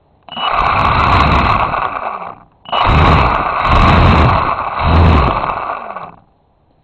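RC airplane's motor and propeller run up hard twice, a harsh rushing noise. The first burst lasts about two seconds; after a brief cut the second runs about three and a half seconds, and each ends with the motor spinning down.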